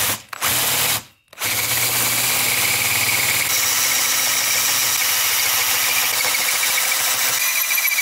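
Cordless drill spinning a 3/4-inch spade (paddle) bit that chews through soft aluminium heat-sink fins. It stops twice briefly in the first second and a half, then runs steadily with a high whine from the cutting.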